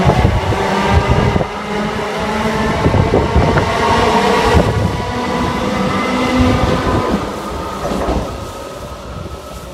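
A passenger train passing at speed on the main line: wheels rumbling on the rails with a humming tone over it, fading away near the end as it recedes.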